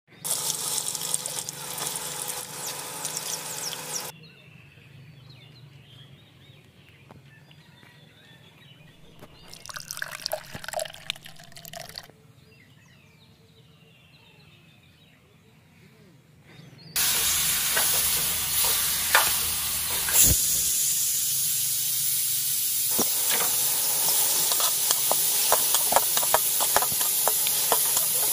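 Chopped vegetables frying in hot oil in a steel pot: a steady sizzle, broken by the clicks and scrapes of a wooden spatula stirring. It sets in loudly about two-thirds of the way through. The opening few seconds hold a separate steady rushing noise.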